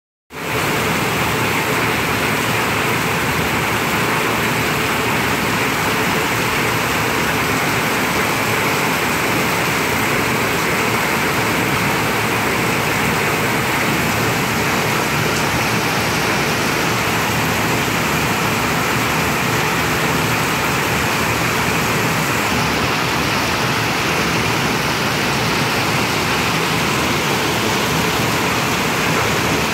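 Heavy rain pouring onto a tin roof: a loud, steady hiss of rain with no letup.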